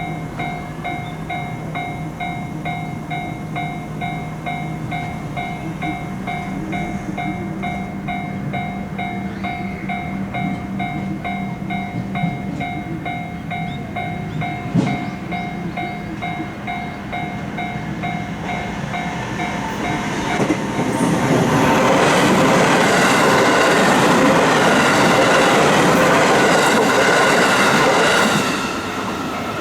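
Japanese level-crossing warning bell ringing in a steady, repeating kan-kan rhythm. About twenty seconds in, a train passes through the crossing, loud for about eight seconds, then cuts off near the end while the bell keeps ringing.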